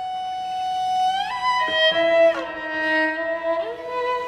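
Solo violin playing a slow passage: a long held note that slides up a little over a second in, then two notes bowed together, with further slow slides down and up between pitches.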